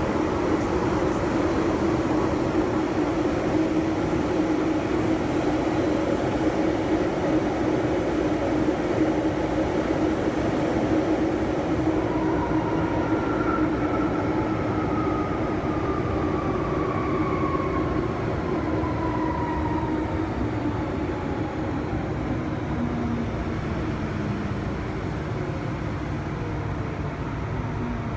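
MTR Island Line M-Train (subway car) running, heard from inside the car: continuous rumble and rail noise with a steady hum. From about halfway through, a traction-motor whine falls slowly in pitch and the overall noise eases: the train is slowing.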